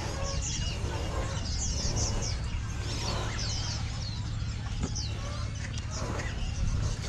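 Birds chirping in quick, high, falling notes, with chickens clucking, over a steady low background rumble.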